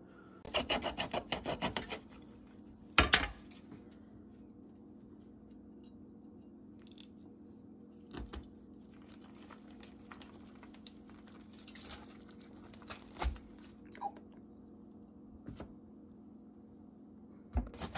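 Hand-cleaning of a northern puffer with a knife and fork: a quick run of scraping crunches in the first two seconds, a sharp knock about three seconds in, then scattered soft clicks and squishes of fork and fish on the tray, over a steady low hum.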